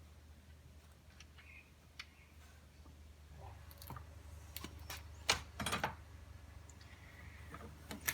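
Small metal washers clicking and clinking as they are handled and slipped onto the jet pump's mounting studs, with a few louder clinks about five to six seconds in.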